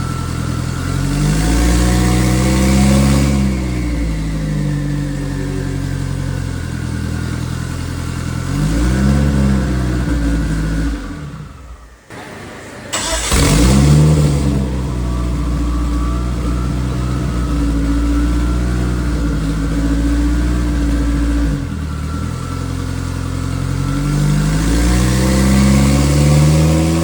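Race car engine idling and being revved in repeated short throttle blips, its pitch rising and falling back each time. The sound drops away briefly just before the middle, then the engine is heard revving again.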